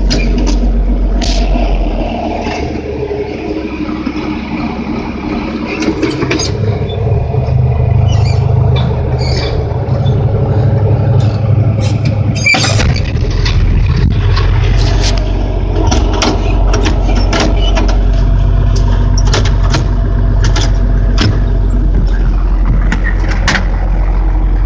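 A John Deere 4440's turbocharged six-cylinder diesel runs steadily, heard from inside the tractor cab, with frequent clicks and rattles. The engine note drops about two seconds in and comes up fuller a few seconds later. A short sharp noise cuts through about halfway.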